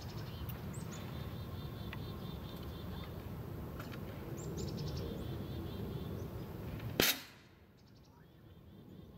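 An agility teeter board tipping and striking the ground with a single sharp bang about seven seconds in, the loudest thing here. Before it, a steady low rumble with runs of a small bird's chirps.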